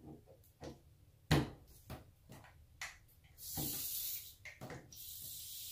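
Small clicks and knocks of a screwdriver and metal trim parts on a shower valve, the sharpest about a second in. Then two short spells of hissing, water escaping from the valve under pressure left in the line although the main valve is shut.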